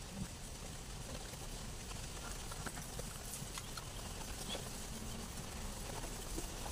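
Someone eating raw leafy greens and rice: soft, irregular chewing and mouth clicks with light rustling of leaves being handled, over a steady low background rumble.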